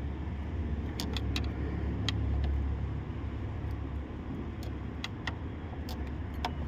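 Scattered sharp clicks and small knocks of plastic coolant-hose clips and connectors being worked loose by hand, about ten over several seconds, over a low steady rumble.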